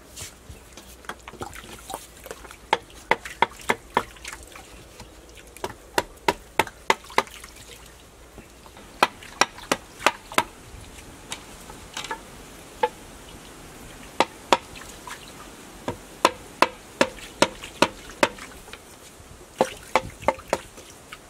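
Wooden stick knocking split bamboo slats down into the earth, sharp knocks in runs of four to six at about three a second, with pauses between the runs.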